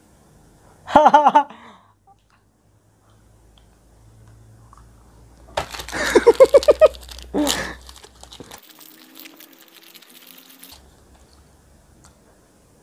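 Men laughing: a short vocal burst about a second in, then a louder run of pulsed laughter around the middle. After it, a faint crinkling of a plastic chocolate-bar wrapper being handled, which stops abruptly.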